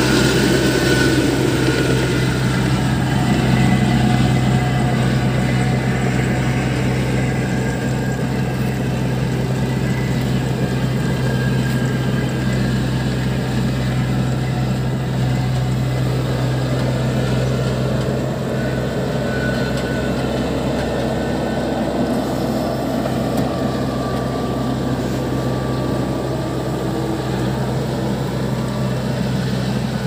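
Kubota DC-70 combine harvester's diesel engine running steadily with a constant low hum as the crawler-tracked machine is driven along.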